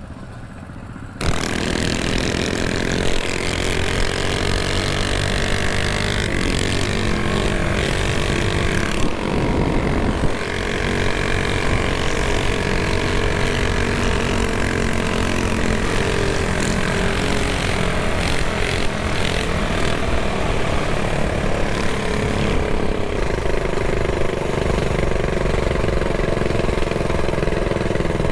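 Small single-cylinder mini bike engines running at road speed, starting about a second in. Their pitch rises and falls with the throttle, dipping briefly around ten seconds in and falling again near the end as the bikes slow.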